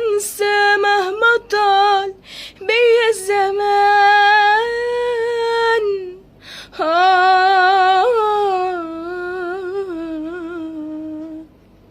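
A woman singing solo with no accompaniment, in drawn-out vowel notes with a wide vibrato and ornamented turns, phrased with short breaths. The last long note fades out near the end.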